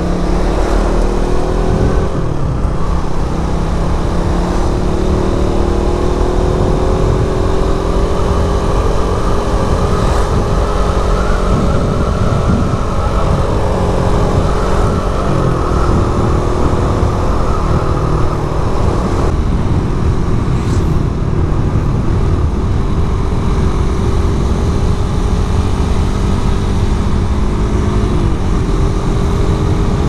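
Suzuki Satria F150 Fi's single-cylinder four-stroke engine running under way, its note rising slowly and dipping briefly a few times as the throttle changes, with wind rushing on the microphone.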